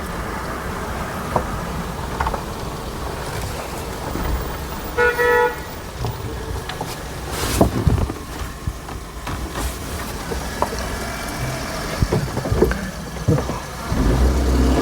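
Suzuki Jimny's four-cylinder engine running under load in low-range four-wheel drive as it climbs a rough incline, with scattered knocks and crunches from the tyres and suspension over rocks. A short double beep sounds about five seconds in.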